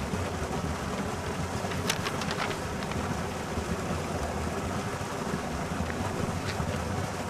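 Wind buffeting an outdoor microphone, a steady rushing noise with an uneven low rumble. A few brief clicks come about two seconds in.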